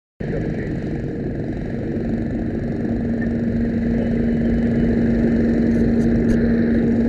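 An engine running steadily with a low rumble. A steady hum joins it about two seconds in.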